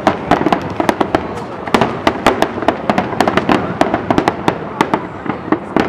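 Aerial fireworks display: a continuous, irregular barrage of sharp bangs and crackling shell bursts, several a second, over a steady rumble.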